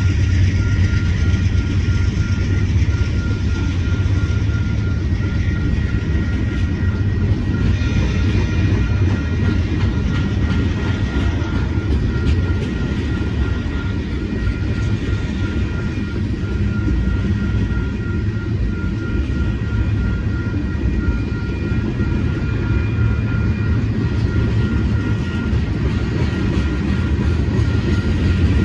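Tank cars of a freight train rolling through a grade crossing: a steady, heavy rumble of steel wheels on rail with some clatter. A crossing bell rings steadily with quick repeated strokes.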